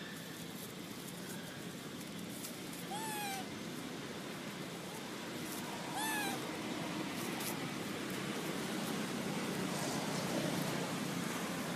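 Baby macaque giving two short coo calls about three seconds apart, each rising then falling in pitch, over a steady background hiss.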